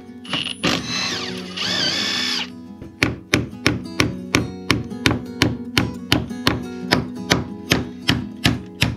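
Acoustic guitar background music. Over it a cordless impact driver runs briefly, then a hammer strikes a steel punch about two and a half times a second, driving an old bolt out of a boat's frame.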